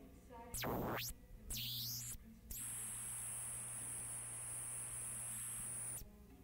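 Reel-to-reel tape playback noise: two short bursts of hiss, each with a sweeping pitch, then about three and a half seconds of steady hiss carrying a high whine and a low hum, which cuts off suddenly near the end.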